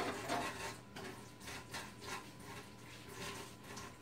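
Faint rustling with scattered light clicks and knocks of kitchen utensils being handled.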